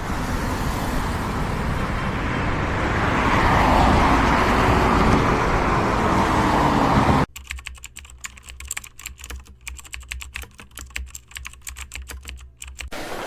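A loud, even rushing noise that swells in the middle and cuts off suddenly about seven seconds in, followed by a long run of rapid, irregular sharp clicks.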